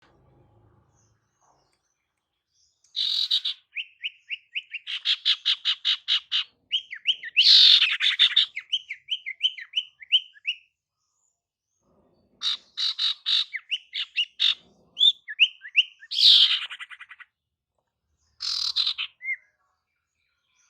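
Calls of a female sirtu, a songbird used as a lure call for males: quick runs of repeated chirps and short rising notes broken by harsh, scratchy bursts. The calls begin about three seconds in and pause briefly around the middle.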